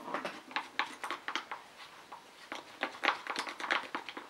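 Wooden popsicle stick stirring glue in a plastic bowl, scraping and tapping against the sides in irregular short strokes, busiest about a second in and again around three seconds in.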